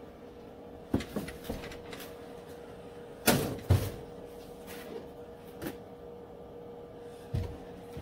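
Scattered knocks and clunks of welding gear being handled against the car body, the loudest a double clunk a little over three seconds in, over a faint steady hum.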